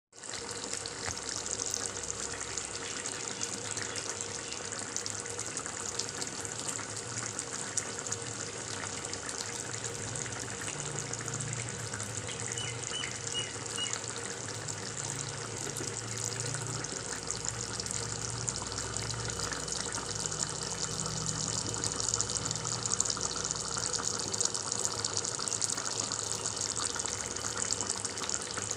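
Pork and mustard-leaf curry bubbling as it simmers in a wok: a steady watery hiss with fine popping throughout.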